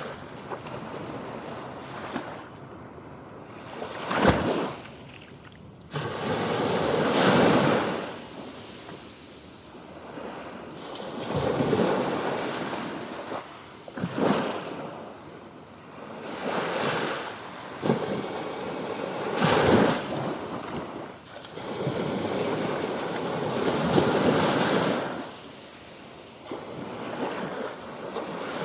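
Sea waves breaking and washing up a beach, each surge swelling and falling away every few seconds, with a few sharper crashes among them.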